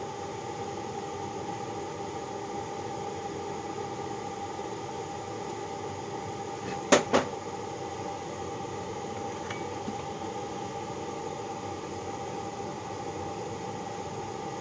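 Two sharp metal clanks about seven seconds in, a steel ladle knocking against a Babbitt melting pot, over a steady rushing hum.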